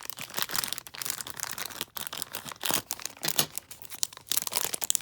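Thin plastic packaging crinkling and crackling in handling, with irregular rustles and crackles, as the small parts of a blind-pack figure are unwrapped.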